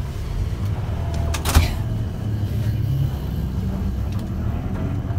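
Moving bus heard from inside the cabin: a steady low rumble of engine and road, with a single sharp knock about a second and a half in.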